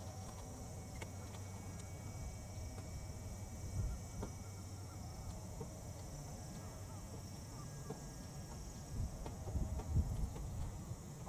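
Outdoor ambience beside a smouldering fire of dried weeds: steady high insect chirring, wind rumbling on the microphone, and a scatter of faint crackles. A few soft low thumps come about 4 seconds in and again near the end.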